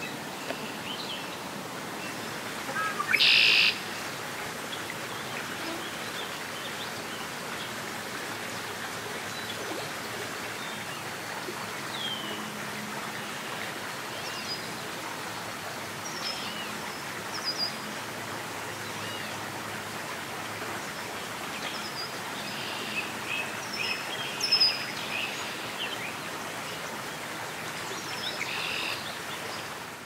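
Red-winged blackbirds singing: a loud buzzy trill about three seconds in and another near the end, with scattered short chirps and slurred whistles between, over a steady background hiss.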